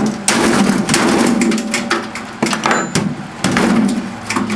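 Metal parts of a microwave oven's chassis clattering and scraping as a support bracket is forced loose, in several loud spells.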